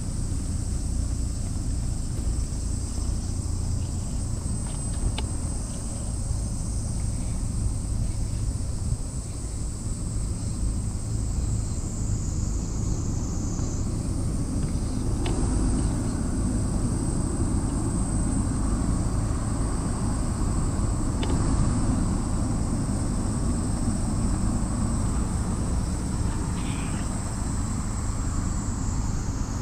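Outdoor ambience: a steady low rumble with high, steady insect chirring over it.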